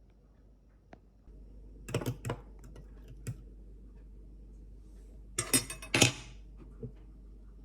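Kitchenware clicking and clattering in sharp short knocks: a few about two seconds in, one near three seconds, and a louder cluster a little after five seconds, over a low steady hum.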